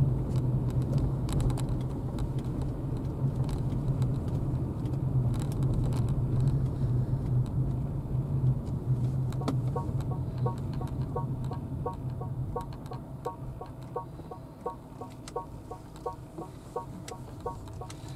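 Steady low hum of the Honda Freed+ driving, heard inside the cabin. About halfway through, the turn signal starts: a quick, even electronic tick-tock with a short pitched tone on each click, the car's 'Tone 2' indicator sound setting.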